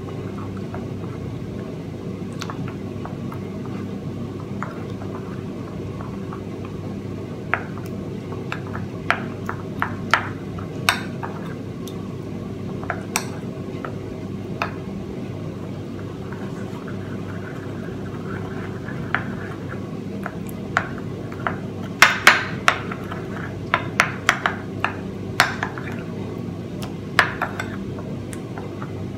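Metal spoon stirring crunchy peanut butter and warm water in a small ceramic bowl, scraping and clinking against the bowl in irregular ticks that come thickest about two-thirds of the way through. A steady low hum runs underneath.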